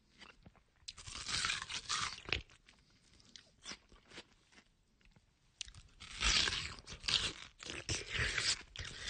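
A person biting into and chewing watermelon, in two spells of dense chewing: one about a second in and one from about six seconds in, with a few small clicks between.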